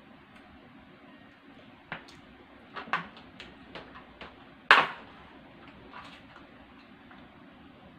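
Short plastic clicks and crinkles as a milk tea cup and its wide boba straw are handled, then one sharp pop a little past halfway as the straw is punched through the cup's sealed film lid.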